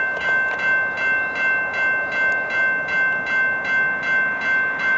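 Railroad grade-crossing warning bell ringing steadily, about two and a half strikes a second, sounding while the crossing is active for an approaching train.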